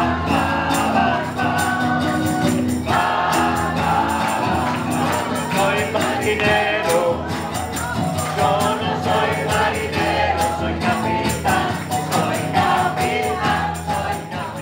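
Music: a song sung by several voices together over a steady percussive beat.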